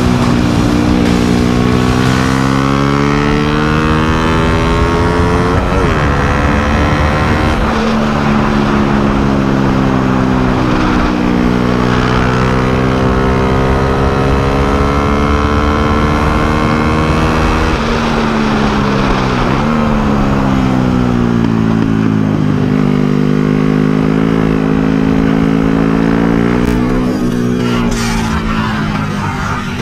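Race motorcycle engine on a track, revs climbing and falling again and again, with several sharp drops in pitch at gear changes. The engine sound falls away near the end.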